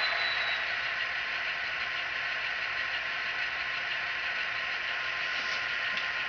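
Model diesel locomotive's sound decoder playing a steady diesel engine sound through its small onboard speaker, with the volume turned up through CV settings. A faint high whine fades out early on, and a couple of faint ticks come near the end.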